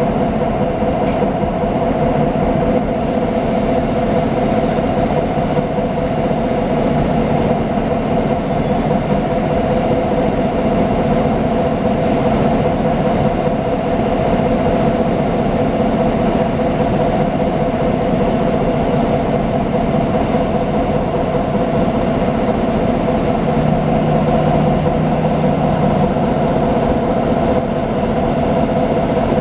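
Nova Bus LFSA articulated city bus under way, heard from inside: a steady drone of engine and drivetrain with a constant whine over it.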